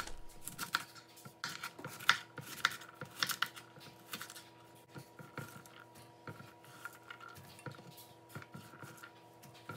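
Large kitchen knife slicing and dicing a raw fennel bulb on a wooden cutting board: a run of blade strikes on the board, two or three a second, softer and sparser after about four seconds.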